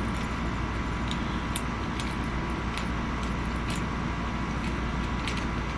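A few faint, light metallic clicks of small tools and gun parts being handled, over a steady low background hum.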